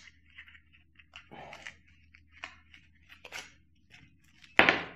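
Light rustling and crinkling of small plastic and paper packaging handled by hand, with scattered soft clicks, and one short louder burst of noise near the end.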